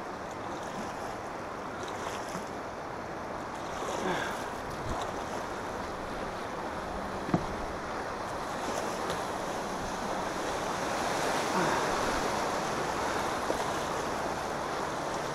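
Rushing, choppy river water of rapids washing around a kayak, with wind buffeting the microphone; the water noise swells in the second half as the chop builds. A single sharp knock about seven seconds in.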